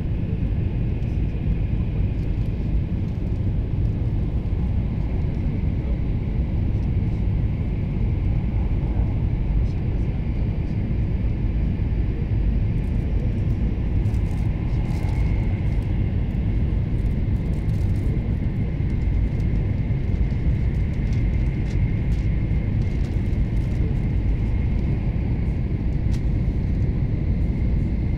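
Cabin noise of a Taiwan High Speed Rail 700T train running at high speed: a steady low rumble with a faint steady high whine over it and scattered faint ticks.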